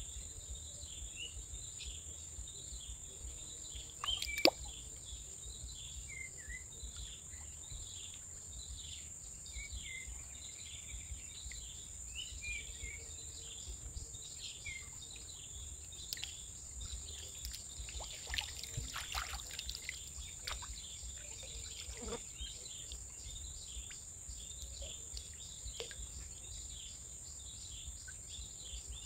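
Stream-bank ambience: a steady high insect drone with many short bird chirps over it. A single sharp click about four seconds in.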